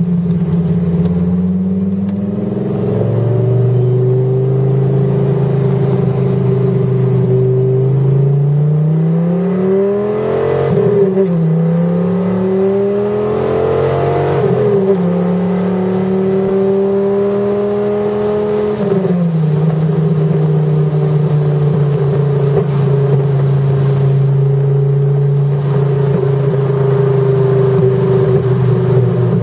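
Dodge Viper GTS's 8.0-litre V10 running at part throttle, heard from inside the cabin. Its pitch steps down about two seconds in, climbs twice in the middle with a sharp drop between, and steps down again about two-thirds of the way through, as the car shifts gear and changes speed.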